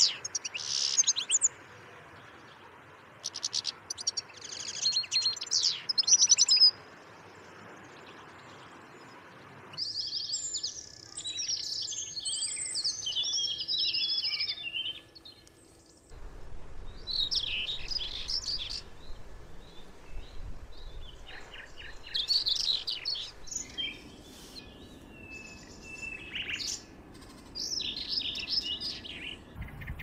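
Small songbirds singing in a string of separate recordings. First a European goldfinch's quick twittering song comes in short bursts over the first several seconds. Then high warbling phrases from other songbirds follow.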